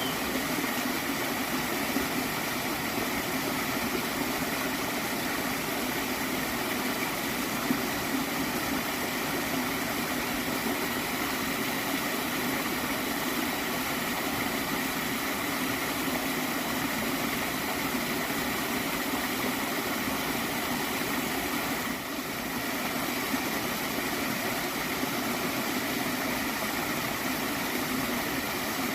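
Water of a small stream flowing steadily: a continuous, even rush that dips briefly about 22 seconds in.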